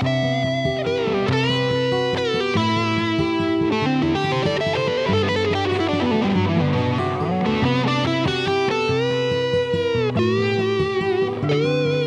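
Rock song's instrumental break: an electric guitar solo of bent, held notes over the band, with a run that falls and then climbs back up in pitch about midway.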